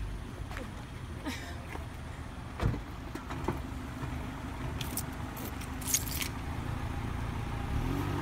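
A car door shutting with a single thump about two and a half seconds in, then a few light jingling clicks around five to six seconds, over a steady low rumble of the car and street.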